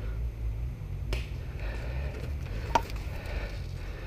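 Two sharp snaps from an airsoft pistol being fired, about a second and a half apart, the second louder, over a steady low rumble.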